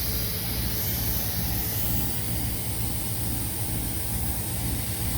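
Steady background noise: a constant low hum with an even hiss over it, with no distinct clicks or knocks.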